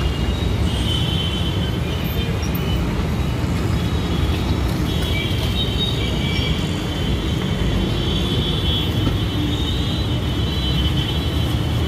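Steady street noise: a dense low rumble of road traffic, with thin high-pitched tones that come and go, strongest through the second half.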